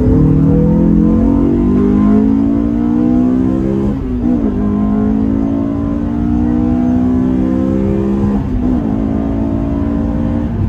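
Honda S2000's four-cylinder engine accelerating at full throttle through the gears, heard inside the cabin with the windows up. The pitch climbs, drops at an upshift about four seconds in, climbs again, and drops at a second upshift after about eight and a half seconds, then holds steady. The car runs an aftermarket intake and test pipe with the stock exhaust.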